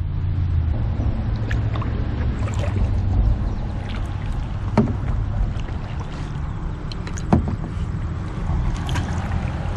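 Solo canoe being paddled on open water: a steady low rumble of water and wind on the microphone, with two sharp knocks about five and seven and a half seconds in.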